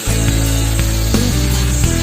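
Background rock music with a steady beat.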